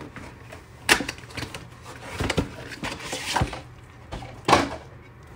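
A small cardboard trading-card box being opened and handled, giving several short, sharp crinkles and clicks.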